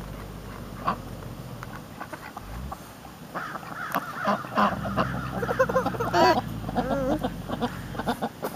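A group of ducks quacking, many short calls overlapping, starting about three seconds in and getting busier toward the end.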